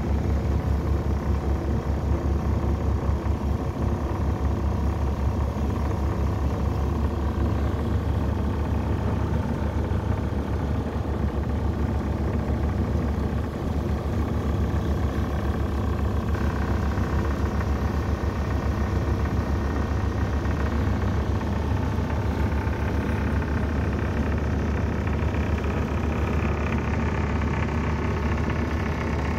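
Passenger riverboat's engine running steadily: a low, even drone with a fine regular pulse.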